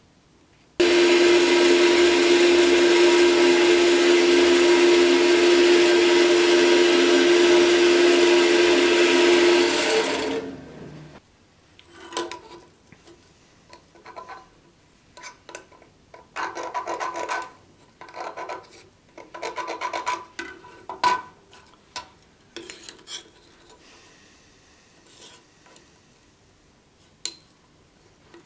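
A power tool starts abruptly and runs loud and steady with a constant hum for about nine seconds, then is switched off and winds down, falling in pitch. After that, short, irregular scraping and rubbing strokes of hand work on a small steel block, with pauses between them.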